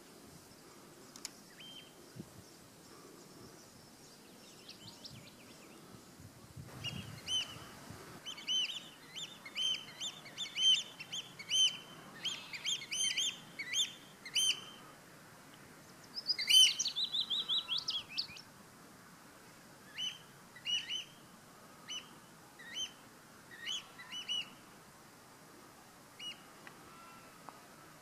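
Willow warbler singing: short sharp notes about once a second, then one quick descending phrase about halfway through, followed by more scattered single notes.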